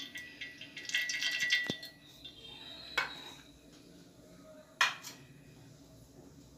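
Kitchen vessels being handled and set down: about a second of rattling clatter with a metallic ring, then two sharp knocks.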